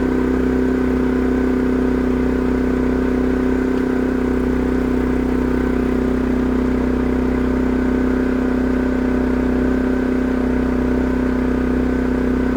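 Champion 4500-watt dual-fuel inverter generator running steadily on propane, an even hum with no change in speed.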